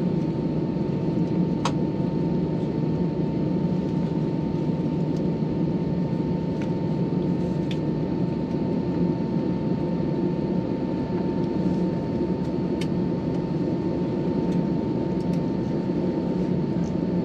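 Steady cabin noise of an Airbus A321 taxiing after landing: a low, even engine and airflow rumble with a thin steady whine and a few light clicks.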